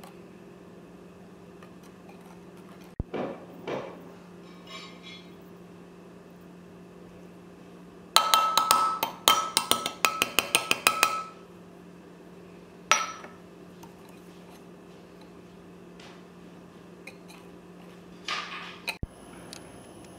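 Metal kitchen utensils clinking against a glass mixing bowl: a quick run of ringing clinks for about three seconds in the middle, with single clinks before and after.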